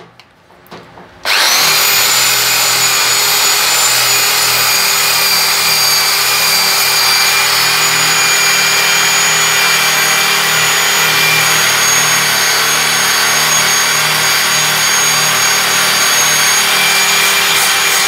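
Electric drill spinning a wire cup brush against a washing machine's sheet-steel frame, scouring off rust. It starts about a second in and runs at a steady speed, with a constant motor whine over the scraping of the wire bristles.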